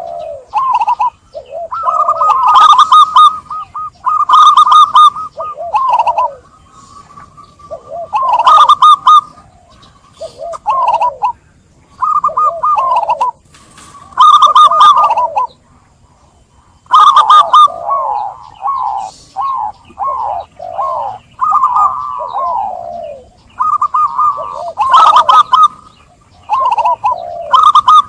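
Zebra dove (perkutut) song: about a dozen phrases of quick rolling coos, one after another with short pauses between them.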